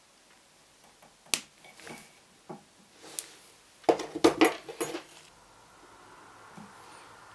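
Small metal hand tools and tiny silver pieces clicking and clinking on a jeweller's bench: a sharp click a little over a second in, then a quick clatter of metal on hard surfaces around four seconds in. A faint steady hiss starts about five seconds in.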